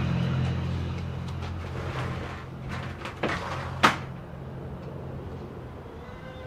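Footsteps walking off, then a door shutting with two sharp clacks about half a second apart, the second the louder. A low steady hum fades away underneath.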